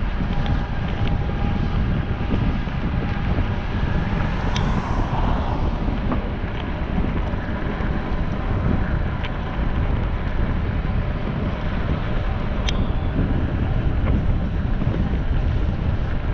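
Steady low rumble with wind buffeting the microphone, with a few faint ticks.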